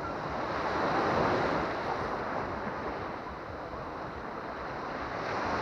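Small Baltic Sea waves breaking and washing up a sandy beach in foam, a steady rushing surf that swells about a second in and again near the end.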